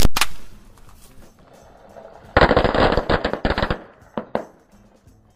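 Pop-pop snappers (bang snaps) going off under a car tyre as it rolls over them: a sharp burst of cracks right at the start, then about two seconds in a dense, rapid crackle of snaps lasting about a second and a half, with two last pops just after.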